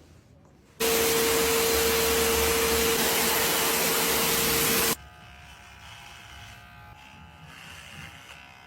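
A small electric motor appliance runs with a loud, even hiss and one steady hum for about four seconds. It switches on abruptly about a second in and cuts off just as suddenly.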